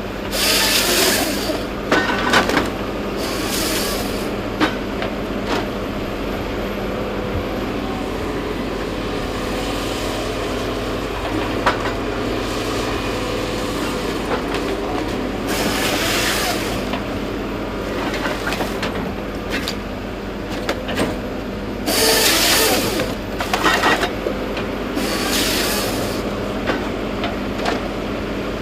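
Heavy forestry machine's diesel engine running steadily, with about five short bursts of harsh noise over it.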